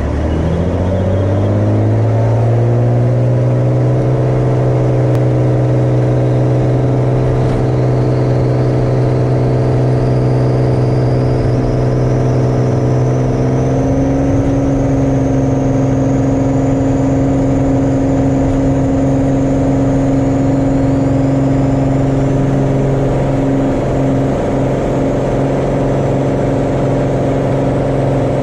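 Cirrus SR20's piston engine and propeller coming up to full takeoff power, the pitch rising over the first two or three seconds, then a steady full-power drone through the takeoff roll and climb-out. A faint high whine rises slowly in pitch through the middle.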